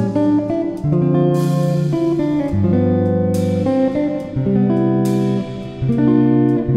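Background music led by a plucked guitar, with a bright accent about every two seconds.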